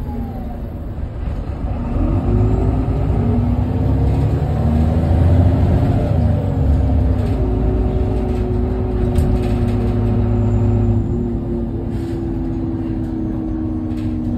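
Irisbus Agora L articulated city bus's diesel engine pulling under acceleration. The engine pitch climbs over the first several seconds and changes about seven seconds in, then holds a steady drone that eases slightly in loudness near eleven seconds in.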